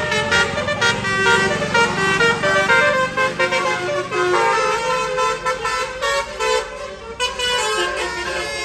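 Tour bus's basuri horn, a multi-note musical air horn, playing a tune of quickly changing notes, over the low running of the bus engine.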